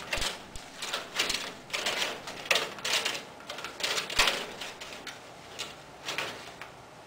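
Thin PVC ceiling tile crackling and clattering against the ceiling grid as it is pushed and shifted into place by hand, with irregular sharp taps. The handling noise thins out after about five seconds.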